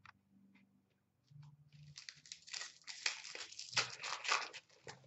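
Foil trading-card pack being torn open and its wrapper crinkled, a dense crackle that starts about two seconds in and stops near the end. A few light clicks of handling come before it.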